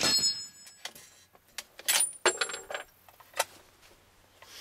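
The tail of a suppressed bolt-action rifle shot, with a high metallic ring from the steel target. About two seconds in, the bolt is worked: sharp metallic clicks and the clink of the ejected brass case, with another click near the end.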